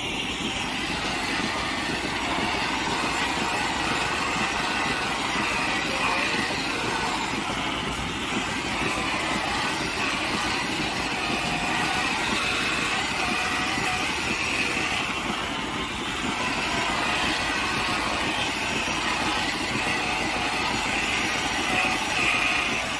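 A machine running steadily with an even mechanical noise throughout.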